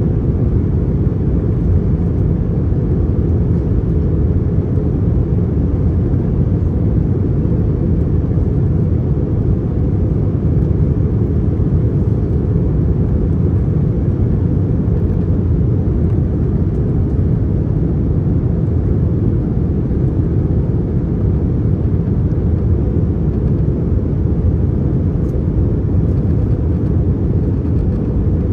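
Cabin noise of a JetBlue Airbus A321 in flight: a steady low drone of the jet engines and rushing air, heard from inside the passenger cabin.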